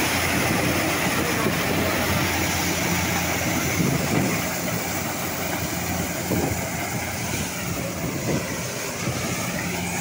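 Kubota combine harvester running under load while cutting dry corn: a steady drone of engine and threshing machinery that eases off slightly after the middle.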